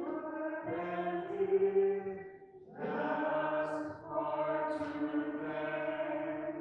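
Offertory hymn sung in church, in slow phrases with a short break about two and a half seconds in, over steady low held notes.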